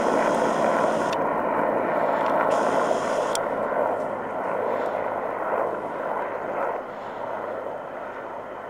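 A flight of Mi-8AMTSh twin-turbine military helicopters passing overhead: steady rotor and engine noise that fades over the second half as they fly away.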